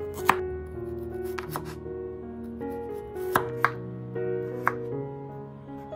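Chef's knife slicing radishes on a bamboo cutting board: about six sharp knocks of the blade striking the board, unevenly spaced, with background music underneath.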